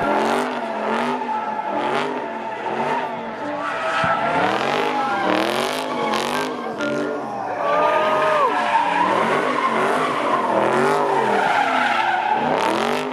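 Car doing donuts: tires squealing on the pavement under wheelspin while the engine note rises and falls in a steady rhythm, about one and a half times a second, as the car spins.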